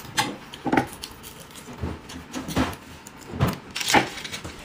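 Skewers clinking and knocking against plates as a handful is pulled from a serving platter and laid on a plate: about six short, separate knocks.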